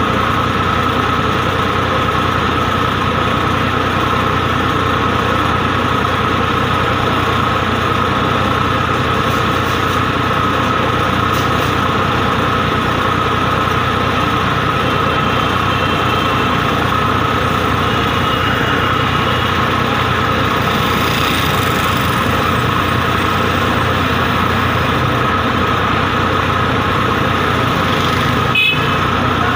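Tractor diesel engines running steadily at idle. There is a single sharp click near the end.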